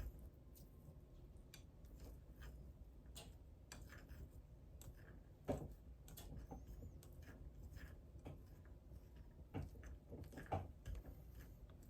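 Faint chewing and munching of food, with scattered small clicks and a few louder clicks about halfway through and near the end.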